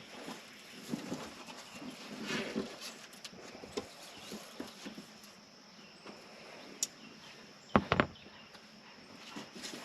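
Scattered rustling and light knocks of hands handling roof rack parts, with a sharp click about seven seconds in and a quick double knock, the loudest sound, about a second later.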